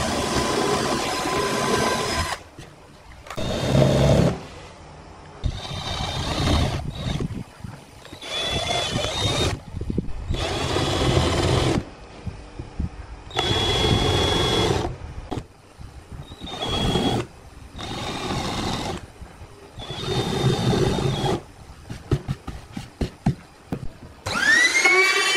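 Cordless drill running in about nine short bursts of a second or two each, the bit boring into a pine board with a thin steady motor whine. About a second before the end, a trim router starts and its whine rises quickly to full speed.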